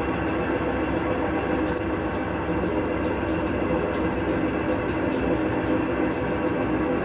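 Electrolux LTC12 12 kg washing machine running with a steady, loud rumble and droning tones from its worn drum bearings.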